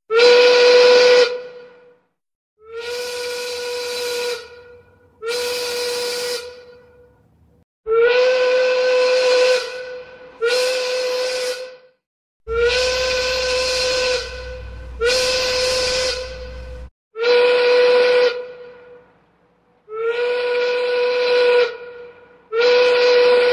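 Steam locomotive whistle blown in about ten separate blasts of one to two seconds each, all at one steady pitch, with a hiss of steam under each blast and short silences between them.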